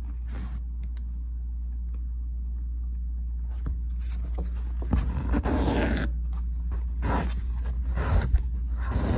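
Embroidery thread being drawn through fabric: several brief swishing pulls in the second half, over a steady low hum.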